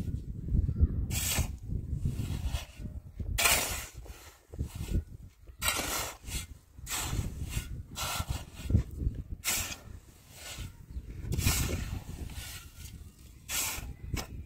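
Steel shovel scraping and scooping through a pile of dry cement mix, a rasping scrape every second or so at an uneven pace. A low rumble runs underneath, strongest at the start.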